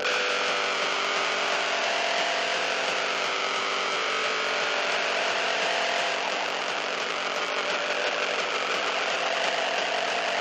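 Harsh noise music: a loud, steady wall of dense distorted noise with a few held tones buried in it and a fast grainy pulsing underneath.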